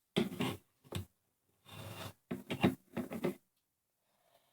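Handling noises from plastic Lego sets being moved and set down: a run of short knocks and rubbing sounds, bunched near the start and again in the middle.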